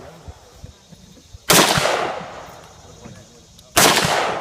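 Two gunshots about two and a quarter seconds apart, each a sharp crack trailing off over about a second.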